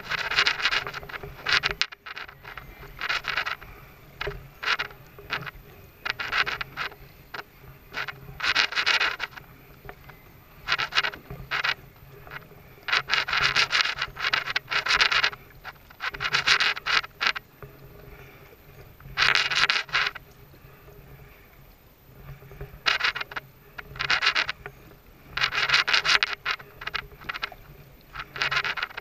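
Kayak paddle strokes: the blade dipping and pulling through the water in a run of splashing bursts, roughly one every one to two seconds, with a lull of a few seconds about two-thirds of the way through.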